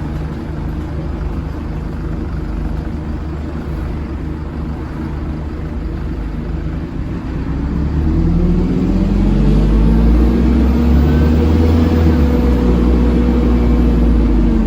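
Dennis Dart SLF bus engine running with a low rumble, then a little past halfway it pulls away: the engine gets louder and its note rises as the Allison automatic gearbox takes up drive, with a faint high hoover-like whine climbing over it.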